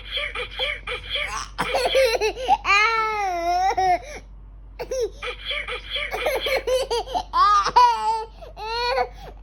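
Toddler laughing in quick bursts, several a second, in two long runs. Between the runs comes a drawn-out high squeal, and near the end several rising-and-falling squeals.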